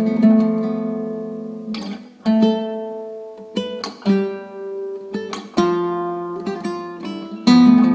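Instrumental music on a plucked string instrument, guitar-like: chords are strummed and left to ring and fade, with a fresh strum every one to two seconds.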